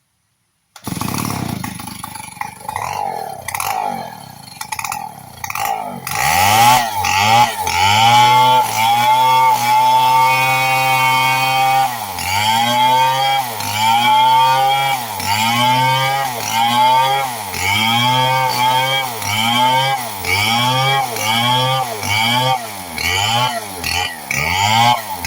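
Two-stroke chainsaw starting about a second in and running at lower speed for a few seconds. It is then revved up and down again and again, about once a second, and held at high revs for a couple of seconds in the middle.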